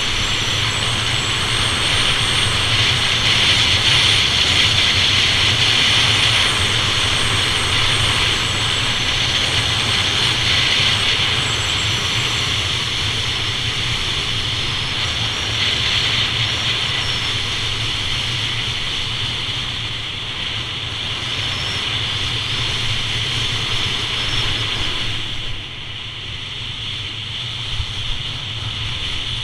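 Wind rushing over the microphone of a camera moving downhill at about 30 mph, mixed with the steady hiss and scrape of edges sliding over packed snow. It drops slightly quieter about 25 seconds in.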